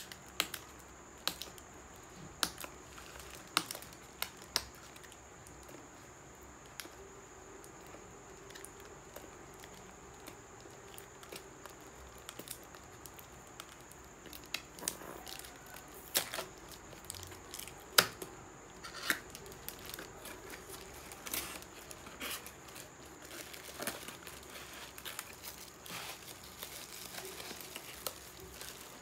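Handling of a small cardboard box and plastic packaging: tape and a seal being picked at and torn off, with plastic crinkling and scattered sharp clicks and taps, the loudest two about 16 and 18 seconds in. A faint steady high whine sits behind it.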